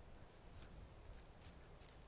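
Near silence: faint forest ambience with a few soft ticks.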